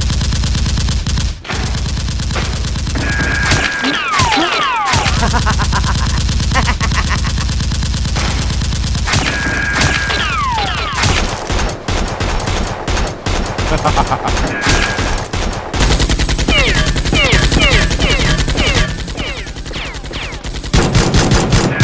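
Rapid automatic gunfire sound effects, bursts of shots fired in quick succession, with falling whistles of passing shots a few times.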